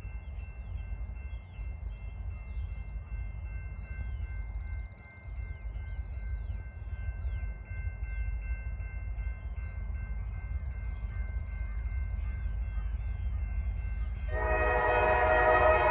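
Diesel freight locomotives running with a low steady rumble, faint bird chirps over it; about fourteen seconds in the locomotive's air horn starts blowing, loud and sustained.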